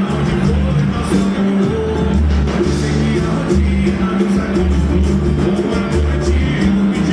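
A band playing a song, with a prominent bass line of held notes changing about once a second and a steady cymbal beat.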